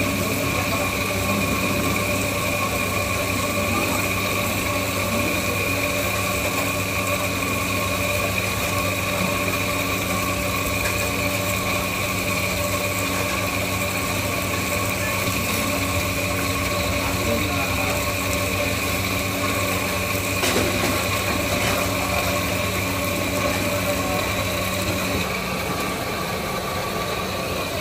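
A steady mechanical hum with several constant tones, like a motor or fan running. Its lowest part drops out near the end.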